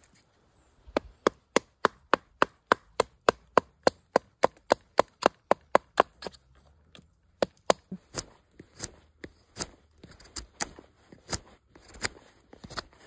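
Sharp wooden knocks of a stick batoning the spine of a fixed-blade knife (Halfbreed Blades ERK-01) down through a pine branch to split it, an even run of about three strikes a second. After a short pause about six seconds in, slower, irregular and mostly lighter chops of the knife into a hand-held piece of the wood.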